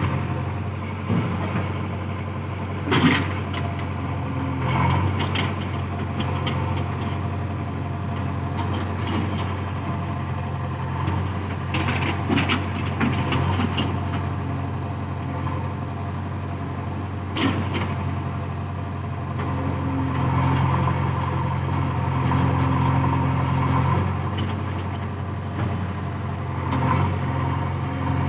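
Diesel engine of a backhoe loader running steadily, with a few sharp knocks scattered through and a stretch of heavier engine load about two-thirds of the way in.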